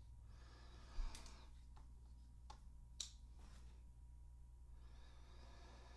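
Faint clicks and light taps of a Boker Plus Vox F3.5 folding knife being handled while a small screwdriver is fitted to its pivot screw to tighten out blade wobble. There is a soft knock about a second in and two sharper ticks about two and a half and three seconds in, over near silence.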